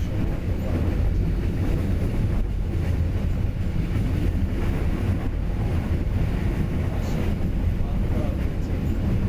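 Train running, a steady low rumble with no distinct knocks or horn.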